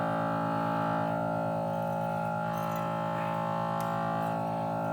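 A steady buzzing hum with a fast low pulse carries through, with faint scraping strokes of a cutting string being drawn back and forth through the glue between a Samsung Galaxy S6 Edge's cover glass and its display.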